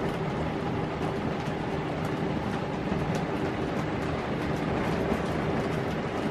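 Steady noise of heavy wind and rain on a fifth-wheel trailer during a hurricane, with a steady low hum underneath and faint scattered ticks.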